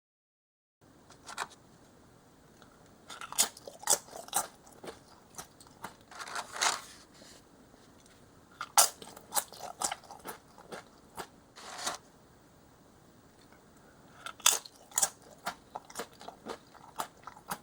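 Crisp homemade microwave potato chips being bitten and chewed, crunching in irregular clusters of sharp crackles with short pauses between.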